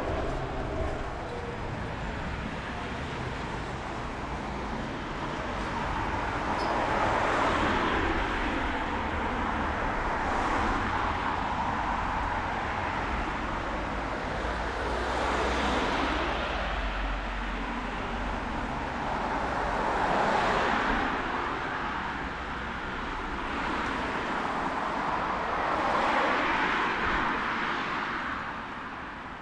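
Cars passing on a rain-wet city street: tyre hiss swells and fades about five times over steady traffic noise.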